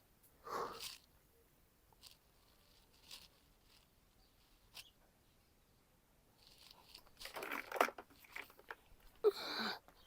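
Quiet, scattered rustling and scraping with a few faint clicks: one short scrape a little after the start, isolated ticks in the middle, and a busier run of rustles and scrapes over the last few seconds.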